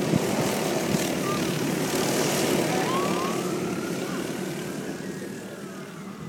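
Racing go-kart engines buzzing as several karts lap the track, the engine note rising and falling and the sound fading steadily as they move away.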